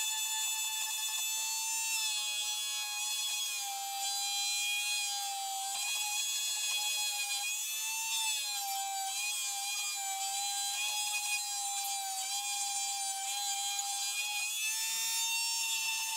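High-speed rotary tool with a pointed carving bit running with a steady high-pitched whine as it gouges a trough into a wooden rifle stock. The pitch sags slightly a few times as the bit bites into the wood and comes back up near the end.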